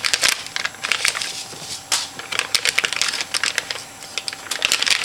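Crinkling and crackling of the plastic packaging of a new hard drive being unwrapped by hand, a dense run of sharp little clicks and rustles.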